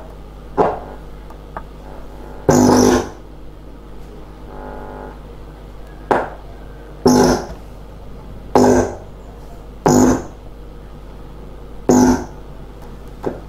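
Buzzes and crackles from a TOA PA amplifier's loudspeaker, about eight short bursts, each time the probe wire touches a point in the circuit, over a steady low mains hum. This is signal tracing along the path of the dead channel 1.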